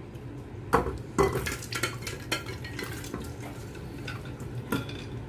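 Cookware and utensils clattering while boiled chicken feet are moved into a bowl of cold water to shock them: a few sharp clinks and knocks, the loudest about a second in, with scraping and stirring between.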